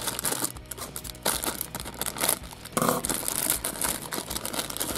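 Thin plastic toy packet crinkling and crackling in irregular bursts as hands work it and pull it open.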